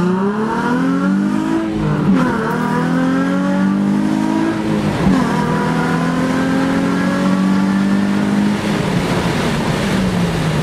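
Nissan 350Z's 3.5-litre V6 pulling through the gears, heard from inside the cabin. The revs climb, drop at an upshift about two seconds in and again about five seconds in, climb and hold, then fall away near the end.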